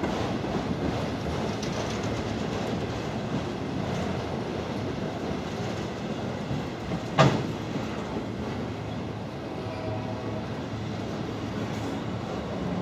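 Freight train rolling past, a steady rumble of wheels on rail with a single sharp clank about seven seconds in.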